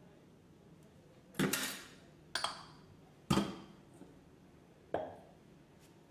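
Small dishes clinking four times as they are handled, each knock ringing briefly.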